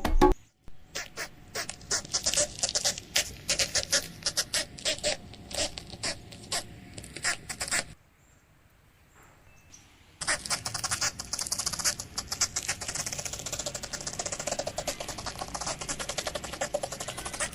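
Small spider activity: dry scratching with irregular sharp ticks for about eight seconds, then after a short pause a denser, fast run of ticking and scratching.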